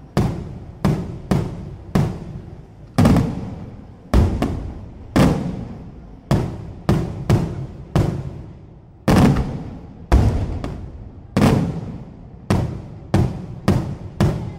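Daytime aerial fireworks shells bursting in an uneven string of loud booms, one or two a second, each trailing off in a long echo.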